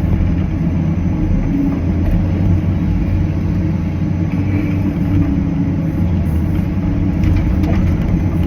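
Cat 325CL excavator's diesel engine running under load with its hydraulics working as it lifts and moves a tree: a steady, constant low rumble.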